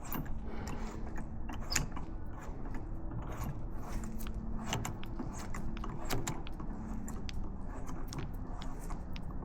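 Metric thread tap (M10×1.25) being turned by hand in a stripped motor-mount bolt hole, threaded in and back out. It gives irregular small clicks and crunches as it cuts and clears aluminium shavings from the threads.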